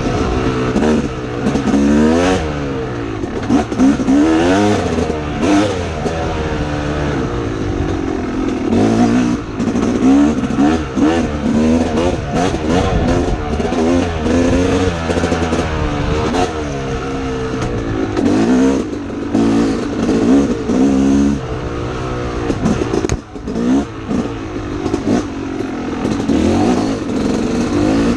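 Dirt bike engine revving up and dropping back again and again as the rider works through the gears on a rough trail, heard from on the bike.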